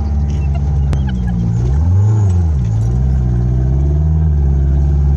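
Buggy engine running under load through deep sand, heard from inside the cab; it revs up and drops back about two seconds in. A sharp click sounds about a second in.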